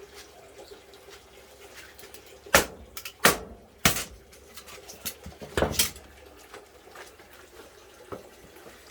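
Firewood knocking: five sharp clacks spread over about three seconds, two of them close together near the end.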